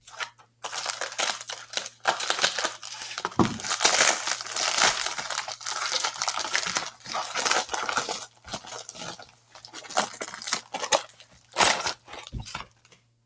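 White plastic bubble mailer crinkling and tearing as it is opened by hand, in spells with short pauses.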